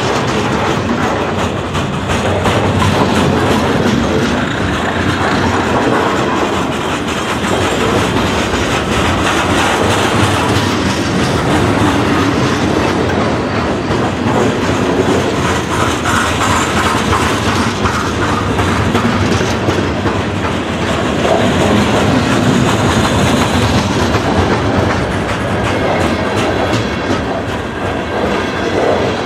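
Freight cars rolling past at close range: a steady rumble and clatter of steel wheels on the rails.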